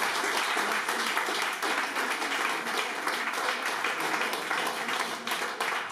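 A small audience of seated guests clapping, a steady round of applause.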